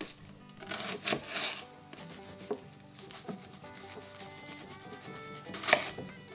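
Kitchen knife dicing a halved onion on a wooden cutting board: rasping strokes of the blade through the onion layers in the first second and a half, then a few sharp knocks of the blade on the board, the loudest near the end. Soft background music with held notes underneath.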